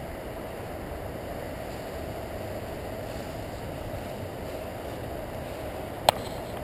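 Steady rushing background noise, with a single sharp click from a handheld camera with a telephoto lens near the end.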